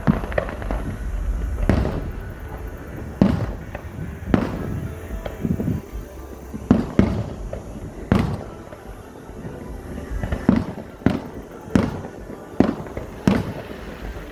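Aerial fireworks exploding: about a dozen sharp booms at irregular gaps, some in quick pairs, each trailing off in a rumbling echo.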